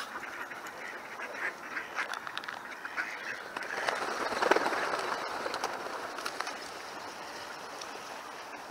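Ducks quacking repeatedly in short calls, with a louder rush of noise about four to five seconds in.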